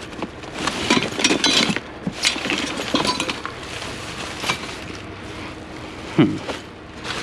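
Hands rummaging through a box of loose hardware: hard metal pieces clinking and clattering against each other in scattered bursts, with one heavier knock near the end.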